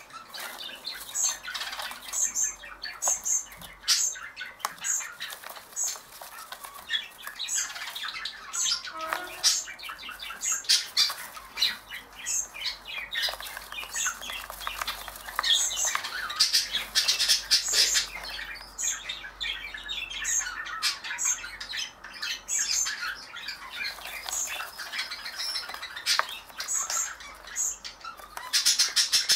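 Young budgerigar chicks giving rapid, repeated raspy begging calls and squawks while being hand-fed.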